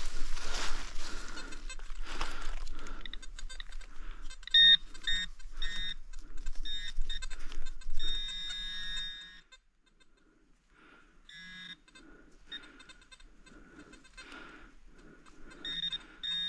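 Scraping and rustling of a hand digging tool cutting into soil and dry leaves. These give way to short, repeated electronic beeps and one longer tone from the metal detector, signalling a metal target in the hole.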